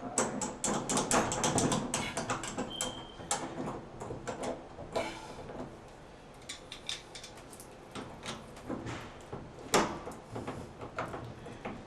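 Metal clicks and knocks of a tub stem socket wrench working the shower diverter stem loose from an old tub and shower valve. The clicks come quickly in the first few seconds, then thin out, with one sharper knock near the end.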